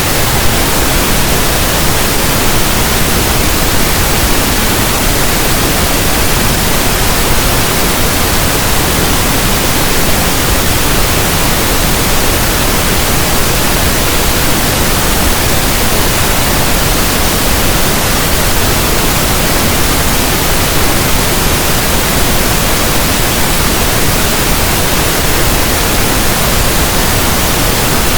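Steady synthetic pink noise: a loud, even static hiss like a radio tuned between stations.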